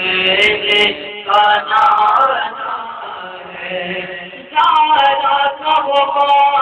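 A male voice singing an Urdu naat into a handheld microphone, with no instruments, in long held and wavering phrases. It turns softer from about three seconds in, then comes back loud near the end.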